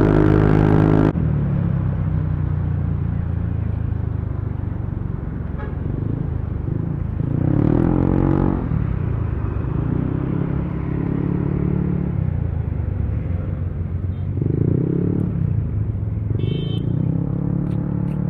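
Yamaha NMAX 155 scooter's single-cylinder engine running through an aftermarket JVT exhaust while riding in traffic, its note rising and falling repeatedly with the throttle.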